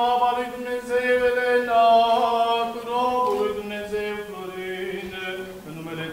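Eastern Orthodox liturgical chant: a voice singing a slow melody in long held notes that move gently up and down.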